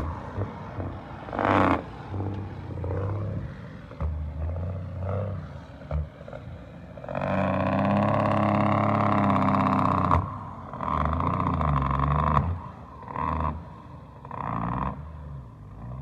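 Heavy loaded dump truck's diesel engine pulling away up a dirt track. It surges several times and drops back in between, the longest and loudest pull about halfway through.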